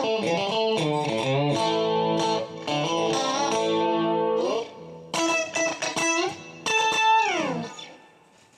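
Westone GT electric guitar played with a clean tone: held notes and chords, a short break about four and a half seconds in, then a few more chords. The last chord slides down in pitch and dies away near the end.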